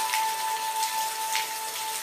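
Steady rain hiss with a few louder single drops, over a held musical tone that fades out near the end.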